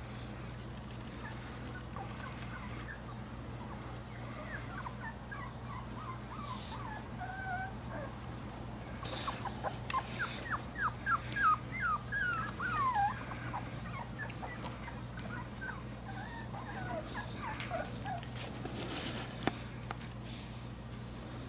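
Boxer puppies whimpering and yipping in many short high calls, several sliding down in pitch, busiest about halfway through.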